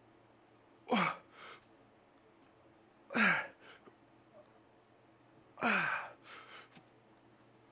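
A lifter's forceful grunting exhalations, one per rep of a heavy incline barbell bench press, three in all about two and a half seconds apart. Each grunt falls in pitch and is followed by a shorter, quieter breath.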